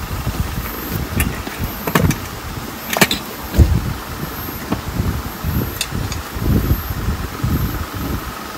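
Several sharp knocks and clicks of things being handled and set down, the loudest about three seconds in, over irregular low rumbling.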